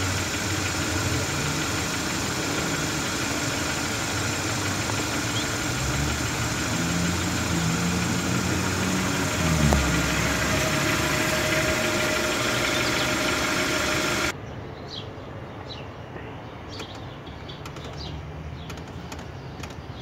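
2012 Hyundai Sonata's engine idling steadily, heard close with a strong hiss over it. About fourteen seconds in, the sound drops abruptly to a quieter steady background with a few light, irregular clicks.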